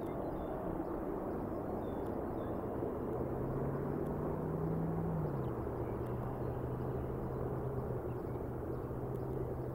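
Outdoor rumble on an open-air nest-cam microphone, with a distant engine's steady low drone. The drone starts about three seconds in and drops a step in pitch a little past halfway.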